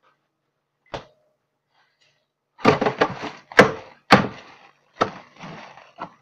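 A large plastic bag of frozen ice being handled and set down on a counter: a run of loud thunks and knocks with plastic crinkling between them, starting about halfway through, after a single click about a second in.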